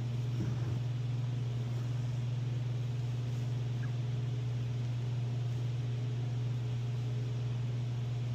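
A steady low mechanical hum at an unchanging level, with a few faint handling clicks about half a second in.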